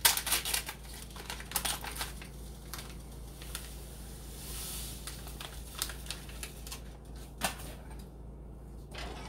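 Paper pouch of Jell-O gelatin powder crinkling and tearing as it is opened, then a soft hiss near the middle as the powder pours into a pan of boiling water, with a few light clicks afterwards.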